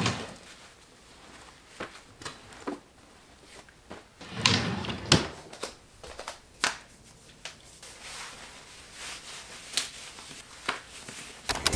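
Dresser drawer being slid shut, among scattered light knocks and clicks of clothes and furniture being handled; the longest, loudest rustle and slide comes about four seconds in, ending in a sharp click.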